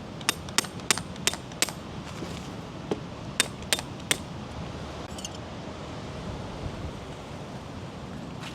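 Metal tent pegs clinking against each other as they are handled: a quick run of sharp clicks in the first two seconds, then three more a little later.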